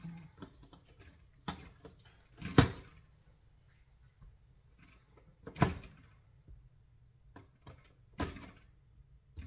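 Knocks and soft thuds of bread dough being handled and weighed: dough pieces set into and lifted out of a metal bowl on a kitchen scale, and put down on a wooden counter. There are four sharp knocks, the loudest about two and a half seconds in, with quieter handling sounds between them.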